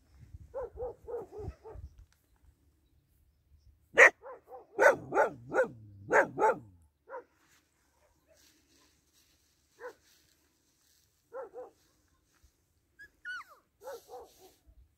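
Young puppies giving short, high yaps and barks in irregular bursts. The loudest run comes about four to six seconds in, and there is a brief whining call near the end.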